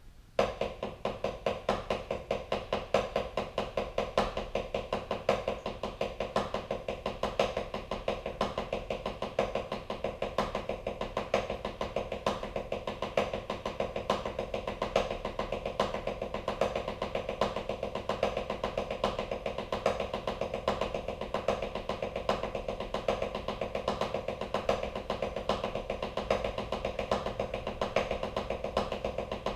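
Drumsticks playing a fast, even double-stroke roll in sextuplets on a drum practice pad, right-right-left-left, with regular louder accents. It starts about half a second in.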